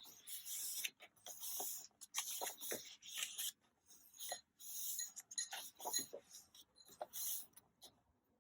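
Paper rustling and sliding in short bursts, with a few light clicks, as the pages of a thin, paper-covered album photobook are turned and handled.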